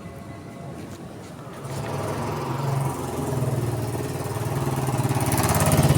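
A small engine running with a fast, even pulse, getting louder from about two seconds in.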